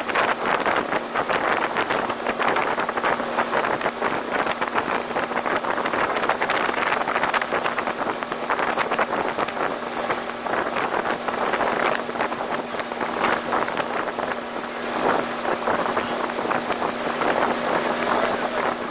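1985 Sea Sprite Continental Mark II runabout under way at speed: a steady engine hum under the rush of water off the hull and wake, with heavy wind buffeting on the microphone.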